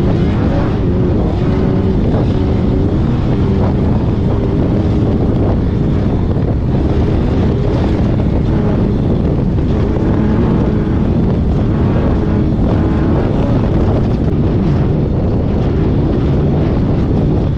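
Off-road race car's engine running hard at speed, heard from inside the car, its note wavering up and down, with wind buffeting the microphone.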